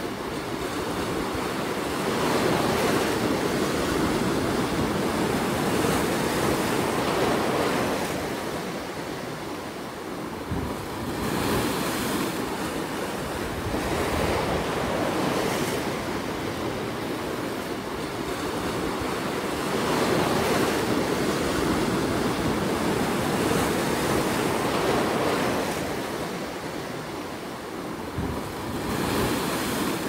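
Ocean surf breaking and washing over low rocks at the shoreline: a continuous rush of water that swells and eases every few seconds as each wave comes in and drains back.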